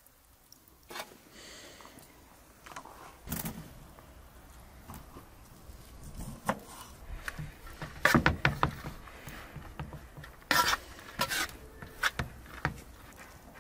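Cooking utensils handled against pots, with scattered knocks, clinks and scrapes as a wooden skimmer stirs saffron rice in a metal pot. The loudest are a cluster of sharp knocks past the middle.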